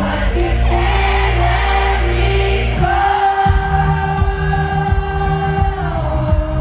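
Live pop concert music over a festival PA, recorded from the crowd: long held sung notes over a sustained low synth, with a pulsing bass beat coming in about halfway.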